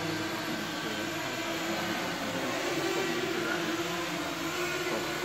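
Small electric motors and propellers of indoor radio-controlled aircraft buzzing steadily, the pitch wavering as the throttle changes, with the echo of a large hall.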